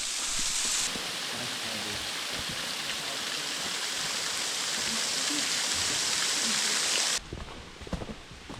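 Rushing water: a steady, even hiss that cuts off abruptly about seven seconds in, leaving quieter scattered low thumps.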